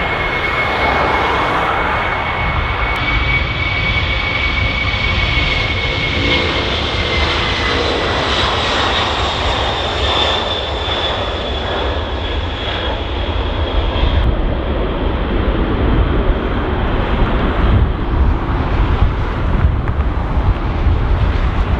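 Boeing 767-300 freighter's twin jet engines at takeoff power, a loud rush with a high whine that slides slowly down in pitch as the aircraft passes. Wind buffets the microphone in the last few seconds.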